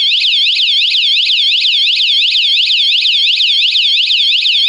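Motorcycle/bicycle anti-theft alarm (뇌울림 3.0 PRO) sounding its full alarm: a loud, high electronic siren warbling up and down several times a second. It was set off by a second shock within 10 seconds of the first-stage warning, with the unit at its lowest volume setting.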